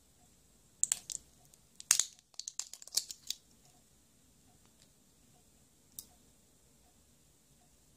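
Child-resistant dropper cap twisted open on a small glass e-liquid bottle: a cluster of sharp plastic clicks and crackles over about two and a half seconds, then a single click about six seconds in.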